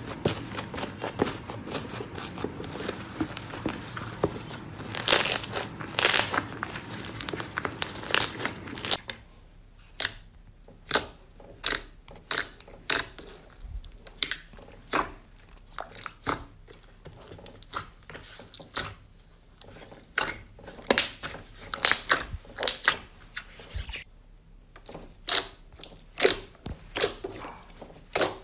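Hands squishing and pressing slime. First comes a dense, continuous crackling; after about nine seconds it changes to separate sharp pops and clicks at irregular spacing as a glossy slime is poked and stretched.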